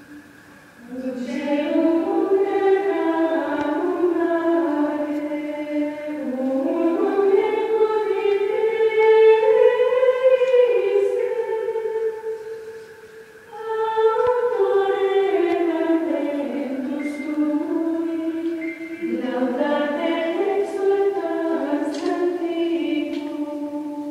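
A group of nuns singing a hymn a cappella in unison, in long sustained phrases with short breaks for breath about halfway through and again later.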